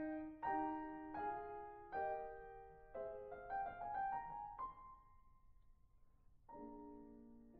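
Background piano music: gentle chords and melody notes struck about once a second, with a single note left to ring and fade about halfway through before a new chord comes in.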